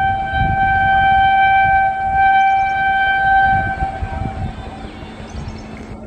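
Indian Railways WAP-7 electric locomotive's horn sounding one long steady blast on two close notes over the rumble of the approaching train. The horn cuts off about four and a half seconds in and sounds again right at the end.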